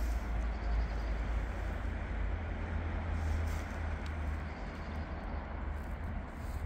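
An X72500 diesel railcar running by, a steady low rumble with broad running noise and a few faint clicks.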